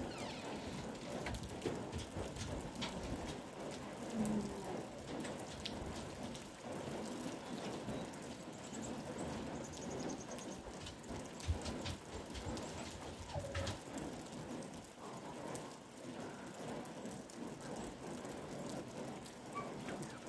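Light rain pattering steadily, with scattered small clicks of drops landing nearby.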